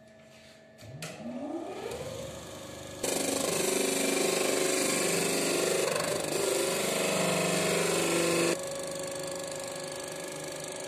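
Disc sander's motor spinning up with a rising whine, then a wooden strip pressed against the sanding disc, giving a loud, even rasping for about five seconds. The sander then runs on unloaded with a steady hum.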